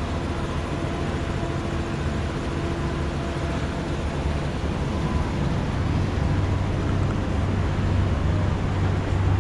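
Diesel multiple-unit commuter train heard from inside the passenger car: a steady low engine hum over running and rail noise, the hum growing a little stronger about two-thirds of the way through.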